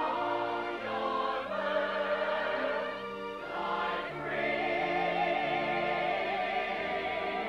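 Musical-theatre chorus singing full-voiced with orchestra. From about four seconds in, one voice holds a long note with vibrato over the ensemble.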